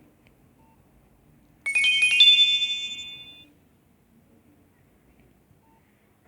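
Nokia 6300 mobile phone tone: a short, bright chime of a few quick notes about two seconds in, ringing on for about a second and a half as it fades, with near silence around it.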